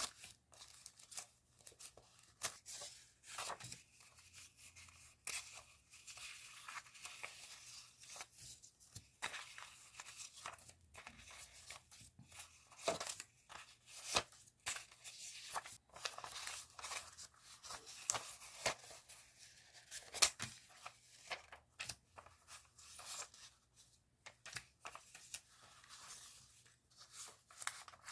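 Stationery packaging being handled and opened: irregular crinkling and tearing of paper and plastic wrappers with small ticks and taps, fairly quiet and close.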